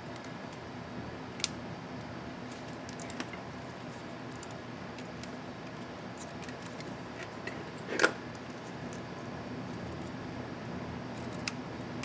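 Scattered small plastic clicks from handling a laptop space bar keycap and its clips, the sharpest about eight seconds in, over a steady low hum.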